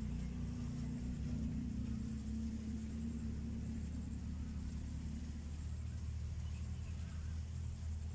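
A low, steady engine-like rumble, its tone dropping about five seconds in, with a faint thin high whine above it.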